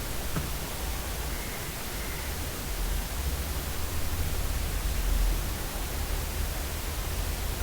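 Steady hiss of background noise with a low hum underneath, and one faint click about half a second in.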